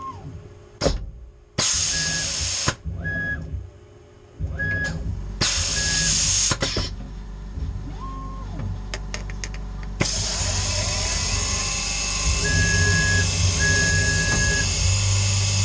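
Tormach 440 CNC mill changing tools and then drilling. In the first part come several short bursts of air hiss and clicks from the tool change, with whines from the axis motors that rise and fall in pitch as they move. From about ten seconds in the spindle runs steadily with a continuous hiss and hum while a 6.5 mm drill in a Jacobs chuck bores into the plate.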